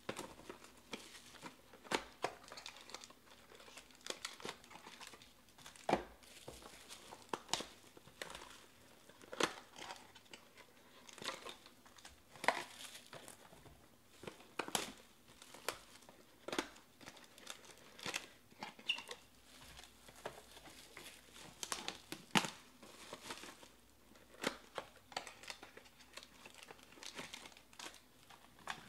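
Plastic shrink wrap crinkling and tearing as it is pulled off a box of trading cards, then foil card packs rustling and being set down in stacks. It is a run of irregular crackles and sharp taps.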